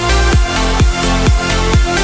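Electronic dance music: a steady kick drum about twice a second over sustained synth bass and chords, with no vocals.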